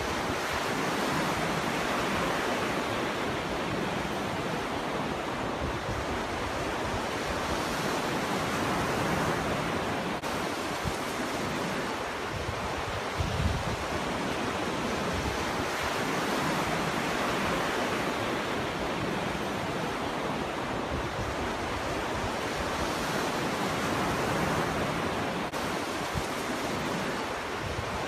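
Ocean waves breaking on a shore in a continuous wash of surf, swelling and easing every several seconds. A brief low thump comes about halfway through.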